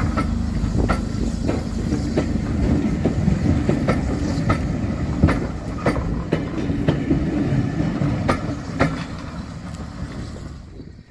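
Railway passenger coaches rolling past at close range, a steady low rumble with wheels clicking over the rail joints about twice a second. The sound fades near the end as the last coach passes and moves away.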